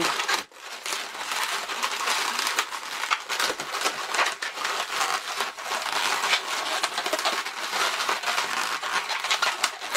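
Latex 260 twisting balloons rubbing against each other and against the hands as they are wrapped and twisted, a steady scratchy, crinkly rubbing with a brief gap about half a second in.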